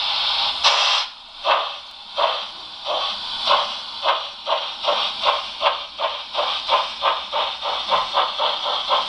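Model steam locomotive's sound unit: a steady steam hiss, then exhaust chuffs that begin about a second in and quicken from about one to about three beats a second as the locomotive pulls away.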